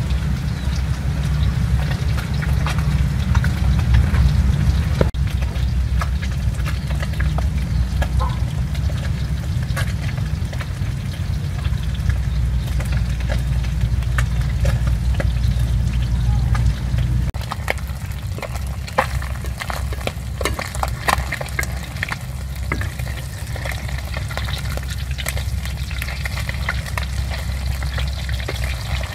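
Fish frying in hot oil in a wok, with a steady sizzle and scattered crackling pops over a low rumble. The crackling gets thicker a little past halfway.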